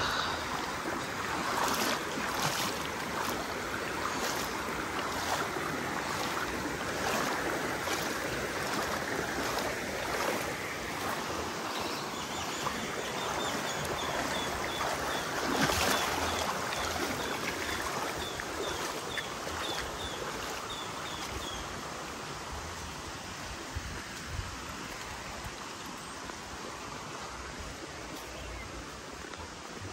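Shallow river water flowing steadily, with splashes of people wading through it barefoot, more regular in the first part.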